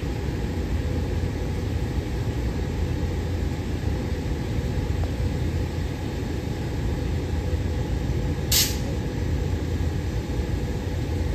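GE-built SEPTA Silverliner IV electric railcar standing at the platform, its onboard equipment running with a steady low hum. A short hiss of released air comes about eight and a half seconds in.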